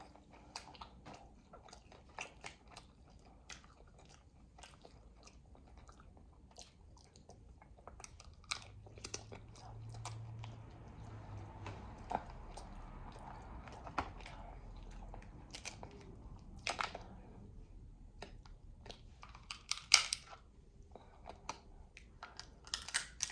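Chewing, with irregular clicks and crunches as Dungeness crab shell is picked apart for its meat. A few sharper cracks stand out in the second half.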